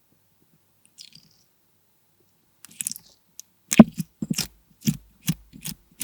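Slushie bead slime being handled: after a near-silent start, a run of about eight sharp, crunchy crackles from the plastic beads in the slime, the loudest a little past the middle.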